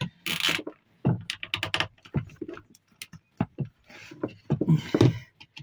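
Plastic cable tie being pulled tight through its head: an uneven run of small clicks and rustles.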